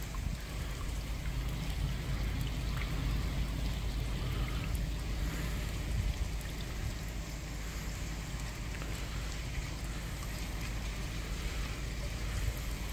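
Heavy rain falling on a flooded street: a steady hiss of rain and running water, with a low rumble underneath.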